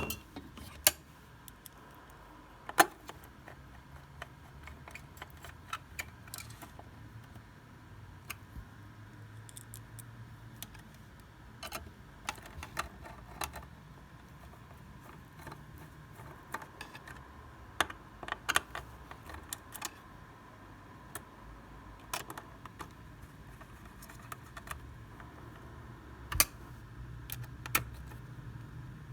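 Irregular light clicks and taps of small hard objects being handled, over a faint steady hum.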